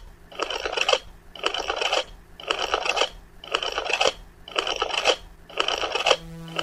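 Edited intro sound effect: scratchy, static-like noise bursts about once a second, each about half a second long. About six seconds in they give way to a steady low buzzing hum.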